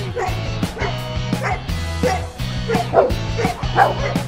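A dog yipping and whining in short, high calls several times, over background music with a steady beat.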